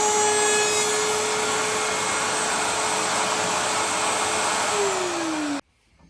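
Handheld wood router running at steady speed with a loud whine. Near the end its pitch starts to fall as the motor is switched off, then the sound cuts off suddenly.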